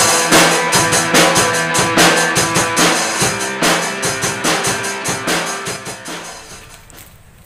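Background music with a driving drum-kit beat, fading out over the last couple of seconds.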